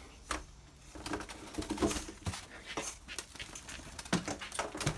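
A small bird trapped in a shed fluttering and flapping, with scattered knocks and rustles as it hits surfaces and the net is moved.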